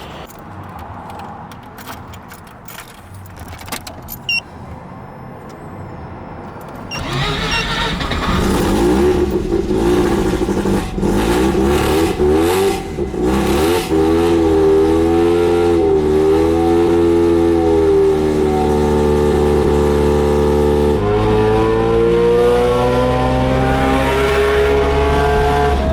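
A few light clicks and knocks, then from about seven seconds in a Mazda RX-7 FC's rotary engine running loudly. Its pitch rises and falls repeatedly as it revs, drops once, then climbs steadily near the end.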